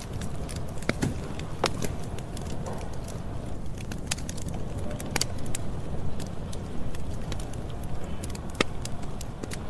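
Campfire crackling: a steady low rumble of burning with irregular sharp pops and snaps.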